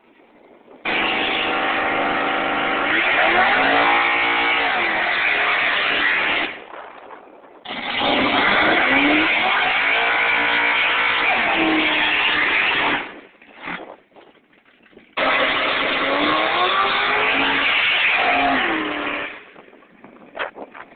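Chevrolet Malibu engine revving in three long bursts of about five seconds each, the pitch dipping and climbing within each burst. Each burst starts and stops abruptly, with quieter gaps between.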